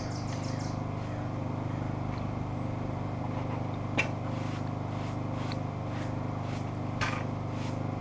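Stiff-bristled hand brush sweeping wet, stuck-on sawdust off a freshly sawn green alder board, with a short sharp stroke about halfway and another near the end, over a steady low machine hum. A quick run of high bird chirps at the very start.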